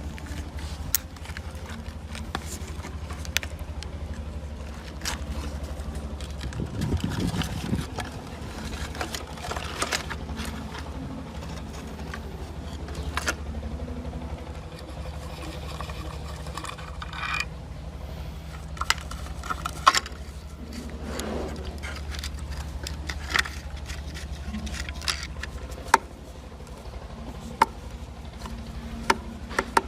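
Metal tools and parts clinking, knocking and scraping, as in motorcycle parts being worked on by hand, over a steady low machine hum that stops about 26 seconds in.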